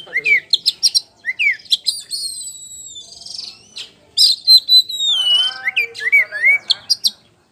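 Oriental magpie-robin (kacer poci) singing a loud, varied song. It mixes clear whistled notes that slide downward with quick sharp chips and a harsh buzzy note about three seconds in.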